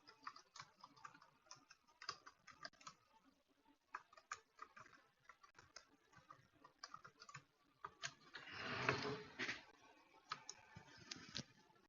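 Faint computer keyboard typing and mouse clicks, coming irregularly, with a brief soft rush of noise about nine seconds in.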